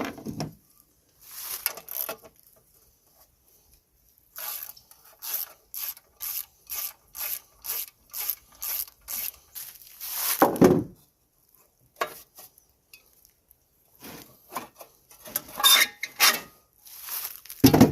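Socket ratchet turning out bolts on the tiller engine, a run of short, evenly spaced clicking strokes about two or three a second, with scattered knocks and a louder clunk of metal parts between them.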